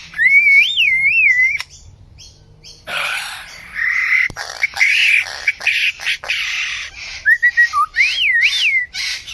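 A single bird singing a varied run of calls: a clear whistle that swoops up and down, then a stretch of harsh, raspy notes, then the swooping whistle again near the end. The bird is said to mix many different birds' sounds in one song.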